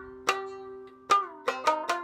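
Shamisen plucked with its sawari disengaged, so the notes ring clean and pure without the instrument's usual buzz. A single note, then a note that slides down in pitch about halfway through, then a quick run of notes near the end.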